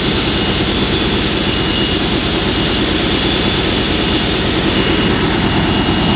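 Ashok Leyland fire truck's diesel engine running steadily and loudly, working its fire pump to move water through the hoses.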